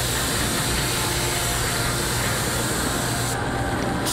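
Air-powered gravity-feed paint spray gun hissing steadily as it sprays paint, over a steady low hum. The hiss cuts out briefly near the end as the trigger is let off, then starts again.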